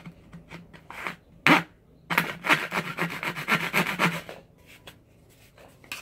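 Small hand saw cutting through the dry shell of an apple gourd, scraping in short strokes. There are a few scattered strokes at first, one much louder, then a quick run of about five strokes a second that stops about a second before the end.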